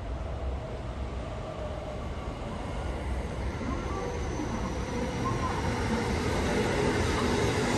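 JR West electric train approaching and running past along the platform, its rumble growing steadily louder toward the end.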